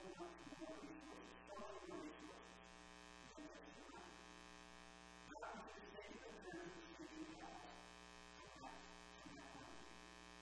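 Steady electrical buzz from a sound system, with a man's voice faint and indistinct beneath it.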